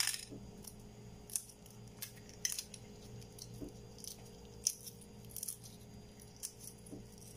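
Eggshell crackling as a hard-boiled egg is peeled by hand: scattered crisp little clicks and cracks, coming unevenly a couple of times a second.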